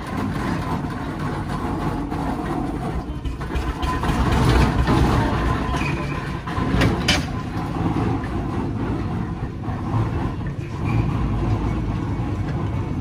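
Steam traction engine running past, towing heavy wagons that roll with a steady low rumble, loudest about four to five seconds in. A brief sharp knock comes about seven seconds in.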